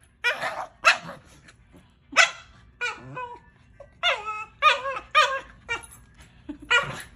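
Small terrier play-barking and yapping while play-fighting, in a string of about nine short barks at uneven intervals, several with a falling pitch.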